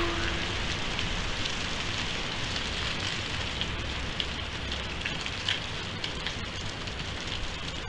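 Gusty storm wind, a steady hiss with low buffeting on the microphone, and dry leaves skittering across tarmac in small ticks. A brief tonal blip right at the start.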